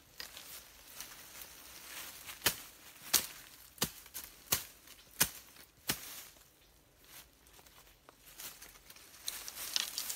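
A knife chopping at the base of a thin woody stem in the undergrowth: six sharp strokes at a steady pace of about one every 0.7 s, followed by the rustle and crackle of dry leaves and stems as the cut stick is pulled free.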